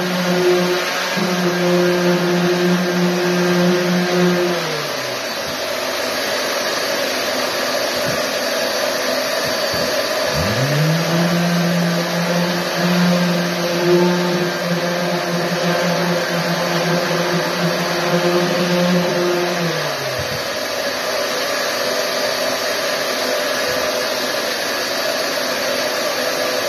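Power sander with a dust-extraction vacuum hose, sanding a wall patch: a steady rushing noise throughout, with a motor hum that winds down about five seconds in, spins back up around ten seconds, and winds down again near twenty seconds.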